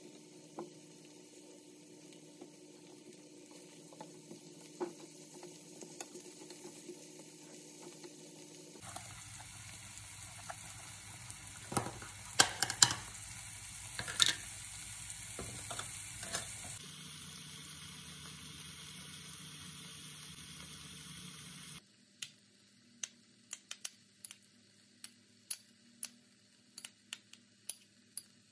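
Sliced button mushrooms frying in a pan, sizzling with scattered crackles and pops. A cluster of sharper clinks comes around the middle.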